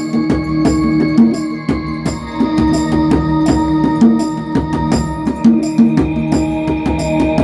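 Djembe played with bare hands in a steady rhythm over sustained ambient chords on a Kurzweil keyboard. The chord changes about five and a half seconds in.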